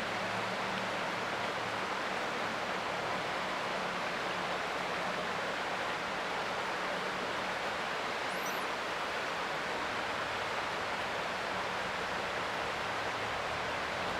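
Creek water flowing with a steady, even rushing hiss.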